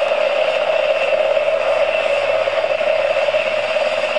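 Motor-driven rotor of a homemade model rotorcraft spinning, a steady whirring hum.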